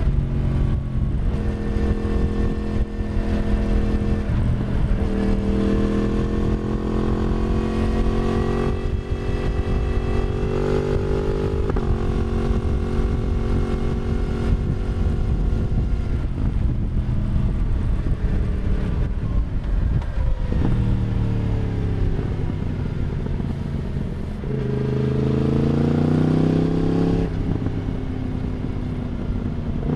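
Yamaha MT-10's crossplane inline-four running through an Akrapovic slip-on exhaust, heard from the back of the moving bike. It cruises with small throttle changes, the note falls as the bike slows about twenty seconds in, then rises louder under hard acceleration from about twenty-five seconds until the throttle closes near twenty-seven.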